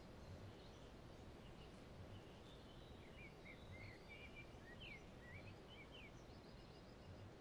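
Near silence: faint outdoor background noise with a bird chirping faintly several times in the middle.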